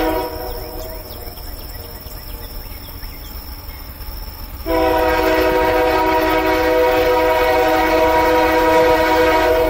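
Air horn of an approaching Union Pacific diesel freight locomotive sounding a chord for the grade crossing. One blast cuts off just after the start, and after a pause a long blast sounds from about five seconds in until near the end. A low, steady rumble from the train runs underneath.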